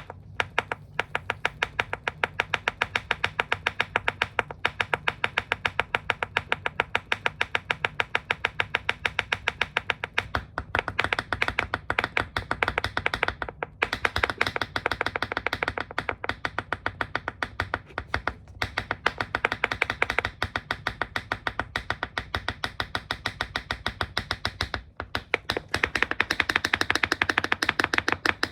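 Tap shoes clicking rapidly on a hard floor, their metal taps striking in a fast, even run of about six clicks a second, broken by a few short pauses.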